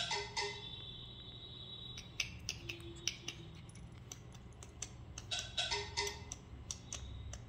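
Small round bell on a puppy's collar jingling as the puppy moves: irregular clicky rattles with short bursts of ringing, near the start and again about five to six seconds in.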